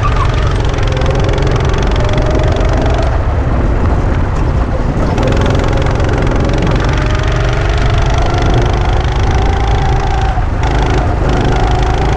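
Go-kart engine running hard on a lap, its pitch dipping about three and five seconds in as the throttle is lifted, then climbing steadily through the second half under acceleration, over a heavy low rumble of wind on the microphone.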